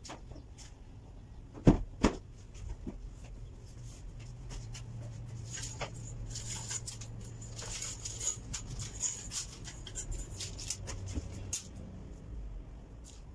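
Damp laundry being taken out of a top-load washing machine and handled: two sharp knocks about two seconds in, then a stretch of rustling and light clatter as clothes are shaken out.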